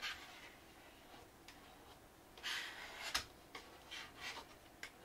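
Plastic squeegee rubbing across a PEI build sheet, pressing the adhesive-backed sheet onto an aluminium build plate to push out air bubbles. It makes a series of short scraping strokes, most of them in the second half, with a sharp click about three seconds in.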